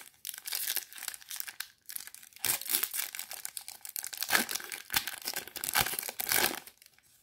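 A 2021 Topps Chrome Platinum Anniversary trading card pack being torn open by hand. The wrapper rips and crinkles in uneven spells with short pauses, then stops near the end.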